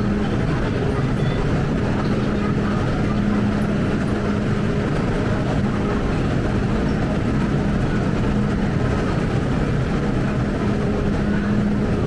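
Steady running noise of a Hong Kong MTR train, with a low hum that fades out and comes back every few seconds.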